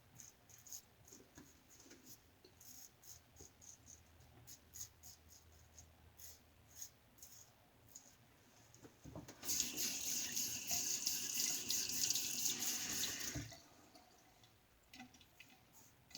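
Half a Wizamet blade in a Firm Blade razor scraping through stubble in many short strokes, then a tap runs into a sink for about four seconds starting around nine seconds in.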